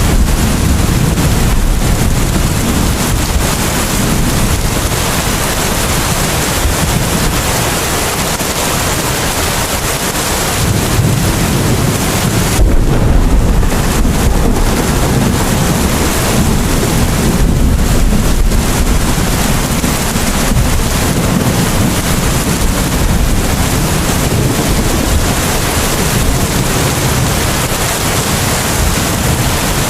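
Steady heavy rain: a dense, even hiss with a strong low rumble beneath it.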